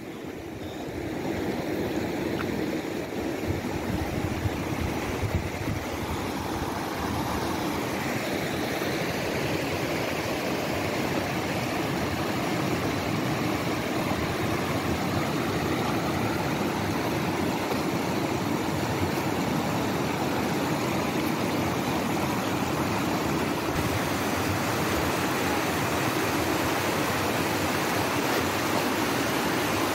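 Mountain river rushing, a steady noise of flowing water that swells over the first second or two and then holds even.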